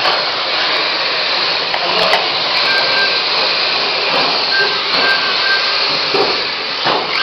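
Several radio-controlled model cars racing, a dense hissing whine whose pitch sweeps up and down as they speed up and slow. Short high beeps sound several times.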